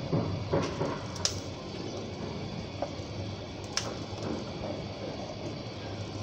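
Curry masala simmering gently in an aluminium pot, with a few light clicks as split green chillies are dropped in.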